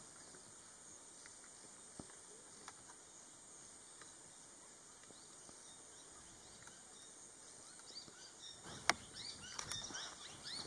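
Faint forest ambience: a steady high-pitched insect drone, a few faint ticks, and from about eight seconds in, a flurry of short bird chirps with one sharp click among them.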